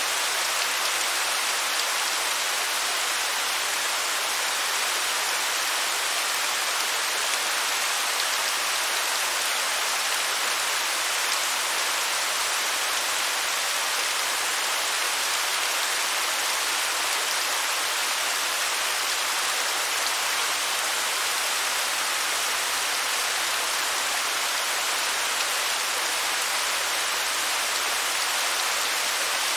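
Waterfall: a steady, unchanging rush of falling water, mostly a bright hiss with little low rumble.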